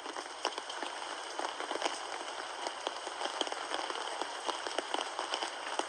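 Rain falling steadily, with many separate drops ticking close by.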